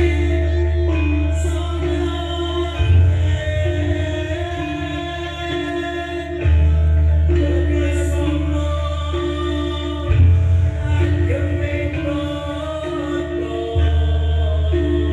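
Loud dance music with singing, played over a large rented sound system (sound horeg), with a deep bass note that changes about every three and a half seconds.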